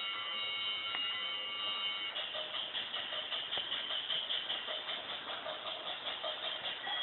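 Battery-powered toy train set: its sound unit plays steady electronic tones that stop about two seconds in. The toy steam locomotive then runs around the plastic track with a whir and a quick, even rhythmic clatter.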